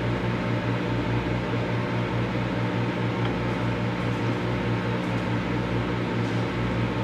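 Microwave oven running: a steady low electrical hum that pulses several times a second, with an even fan-like whir over it.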